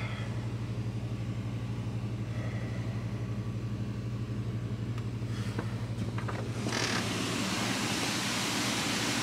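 Storm rain and wind rising into a heavy downpour about seven seconds in, over a steady low mechanical hum.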